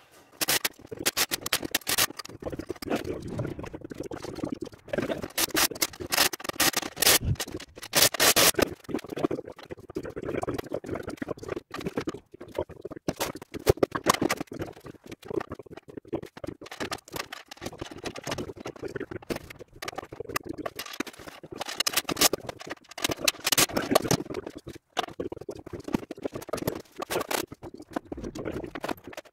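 Irregular clicking, knocking and scraping of metal parts and tools being handled while a tow-behind tine dethatcher is put together.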